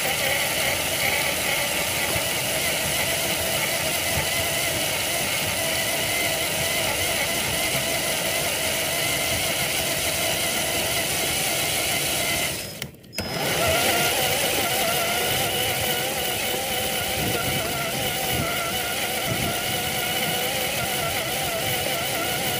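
Traxxas TRX-4 RC crawler's electric motor and gear drivetrain whining steadily as it drives, the pitch wavering with speed. The sound cuts out for about half a second roughly halfway through, then returns.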